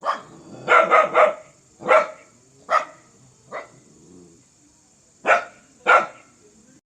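A dog barking fiercely: about nine sharp barks in uneven bursts, with a quick run of three about a second in and a short pause before the last two.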